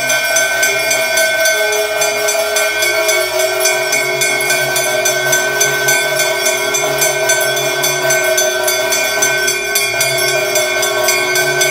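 Temple bells ringing continuously during the aarti, struck in a fast, even rhythm, with their ringing tones sustained over the strikes.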